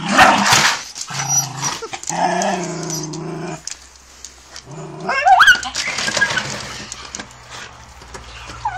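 Jagdterrier growling steadily at a plastic crate with a hare under it, after a loud, noisy burst at the start. About five seconds in it gives a high, rising whine, and near the end a short whine: the excitement of a terrier worrying its quarry.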